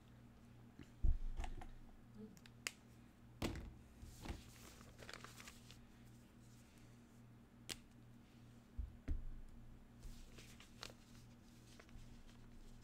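Scattered taps, clicks and knocks of marker pens and drawing paper being handled on a desk, with heavier thumps about a second in and again near nine seconds and a short scratchy rustle around four to five seconds. A steady low electrical hum runs underneath.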